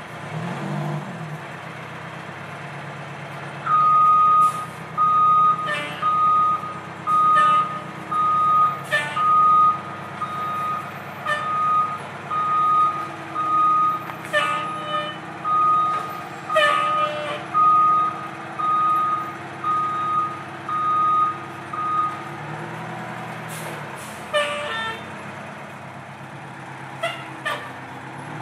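Fire truck's reversing alarm beeping, a single high tone repeating a little faster than once a second, over its idling engine. The beeping stops a few seconds before the end, and short hisses of air break in now and then.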